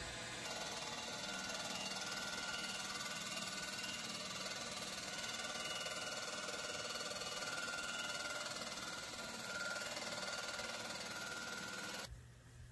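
Surfacing machine running as it resurfaces the deck of a Mitsubishi 4G93 aluminium cylinder head, a steady mechanical whine and hum. It stops abruptly near the end.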